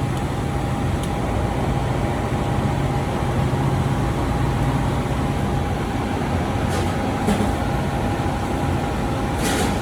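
Steady machine running noise with a low hum and a thin steady tone, and a short hiss near the end.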